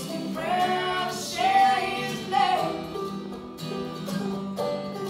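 Live acoustic folk music: a woman singing one line over two acoustic guitars picking a steady accompaniment. The voice comes in about half a second in and stops a little before the middle, leaving the guitars picking on their own.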